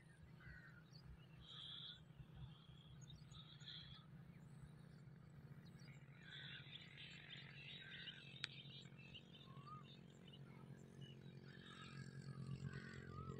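Near silence with faint birds chirping on and off over a low steady hum, and one brief faint click partway through.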